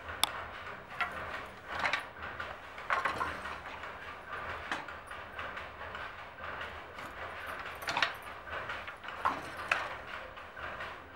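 Wooden handloom at work: irregular clacks and knocks of the shuttle and beater, spaced about a second or more apart, over a low steady background hum.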